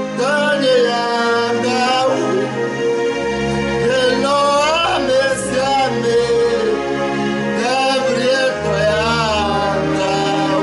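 A man singing a worship song over instrumental accompaniment, his voice holding and bending long notes above a steady low bass line.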